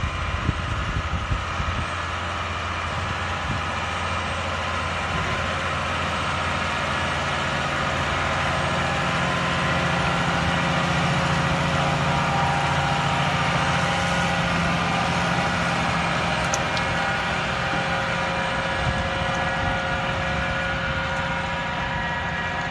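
New Holland tractor engine running steadily under load while driving an Imants spading machine through the soil. It grows louder toward the middle as it passes, then eases off.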